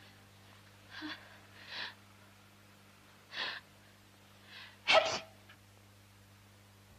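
A schoolgirl's sneeze: a few short, gasping intakes of breath build up, then one loud sneeze about five seconds in, over a faint steady low hum.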